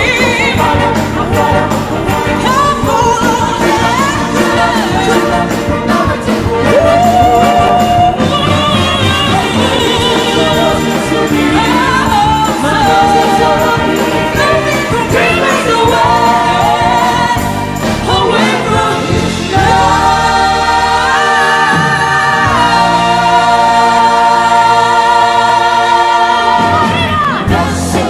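A live band with women singing into microphones, a lead voice over backing voices. In the last third several voices hold a long chord together in harmony.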